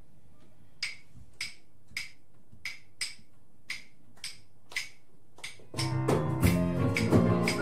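Opening of a live band number: a percussion instrument clicks out a sparse beat, about eight sharp clicks, then near the end the full band comes in with drums, electric guitars and keyboard.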